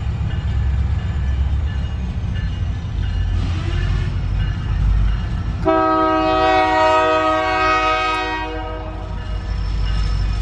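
A train horn blows one long, steady blast of about three seconds, starting a little over halfway through, heard from inside a car over the low rumble of the idling car.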